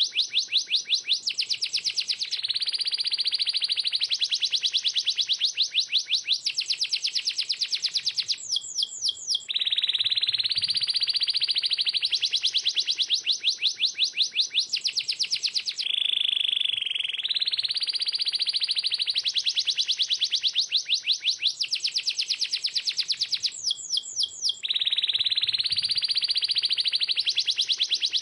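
Domestic canary singing one unbroken song of fast rolled trills: high, rapidly repeated notes that switch to a new trill every second or two. The same string of rolls comes round again about halfway through.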